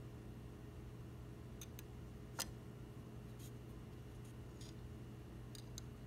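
Quiet room tone with a steady low hum, broken by a few faint, short clicks, the sharpest about two and a half seconds in.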